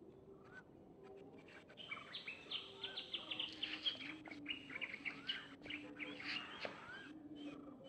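Birds chirping in the trees: a dense run of quick, high chirps starts about two seconds in and thins out near the end, over a faint low steady hum.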